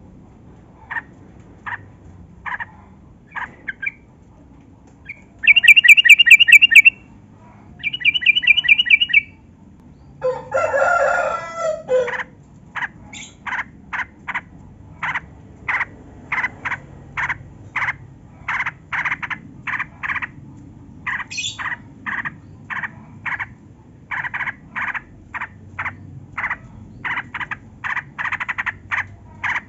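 Yellow-vented bulbul (trucukan) song: a few short notes, then two loud rapid trills, a harsher, lower call lasting a second and a half, and then a long run of short, quick chirps at about two a second.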